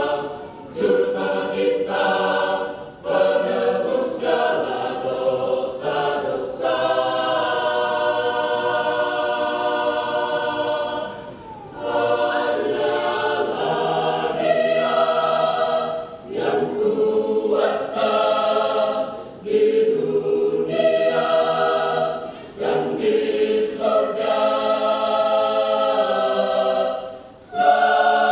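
Mixed choir of women's and men's voices singing unaccompanied, in sustained phrases with short breaks for breath between them.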